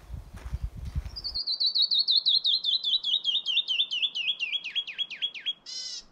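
Footsteps on the trail for about the first second, then a canyon wren sings a long cascade of quick whistled notes falling steadily in pitch, ending in a short buzzy note.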